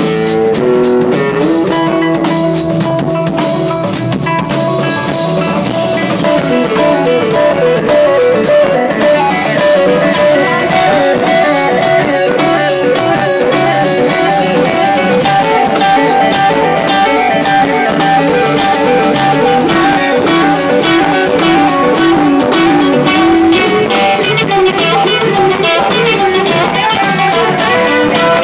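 Live rock band playing an instrumental passage: electric guitars playing busy melodic lines over a drum kit.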